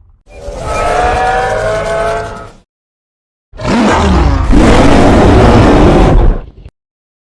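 Two King Kong vocal sound effects with a second of silence between them. The first is a wavering, pitched call of about two seconds. About three and a half seconds in comes a longer, louder and rougher cry lasting about three seconds.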